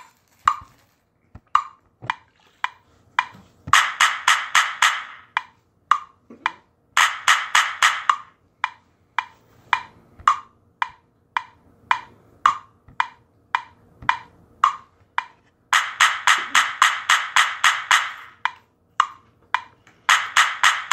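Sharp, pitched percussive knocks, like a wood block, struck singly about twice a second with several fast rolls of rapid strikes in between.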